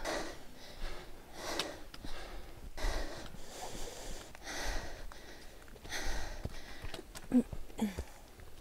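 A hiker breathing hard on an uphill mountain trail, with a loud breath about every second and a half from exertion. Near the end come a couple of short voiced grunts.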